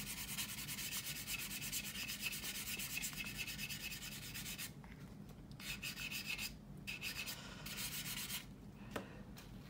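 600-grit sanding sponge rubbed lightly back and forth over a CA-glue-filled seam on a plastic model aircraft wing's leading edge, a fast, fine scratching. The strokes stop briefly about five seconds in and again near the end.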